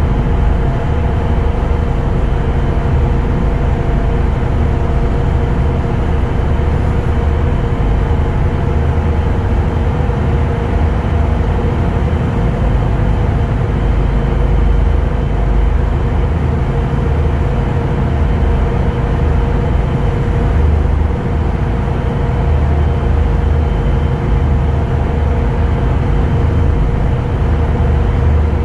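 Steady low rumble and drone of a moving vehicle, with a few constant humming tones running through it.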